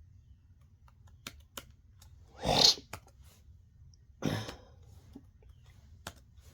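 Two short, breathy throat noises from a person, a louder one about two and a half seconds in and a shorter one just after four seconds, with faint clicks in between.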